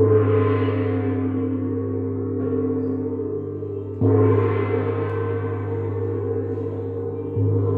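Gong struck with a mallet three times: at the start, about four seconds in and near the end. Each stroke rings on in a deep hum with a bright wash of overtones that slowly fades and carries into the next stroke.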